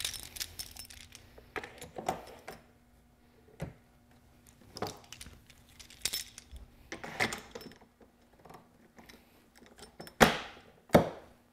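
Steel locking C-clamps being handled and clamped onto a plastic hinge jig on a wooden door: scattered metallic clicks and clinks, with two louder clacks near the end as the clamps lock down.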